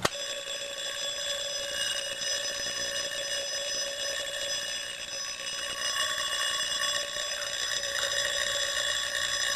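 Small Edwards 3-inch fire alarm bell ringing continuously after the pull station is pulled. It starts suddenly and rings steadily.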